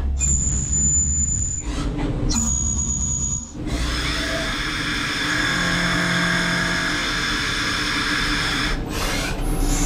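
Tornos Swiss GT 32 CNC lathe machining a long brass threaded bolt, the spindle and cutting giving a steady high whine. The sound shifts abruptly about two and three and a half seconds in.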